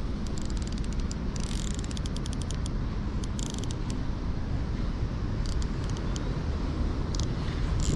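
Baitcasting reel being worked by hand, giving several short bursts of fine rapid clicking, over a steady low rumble.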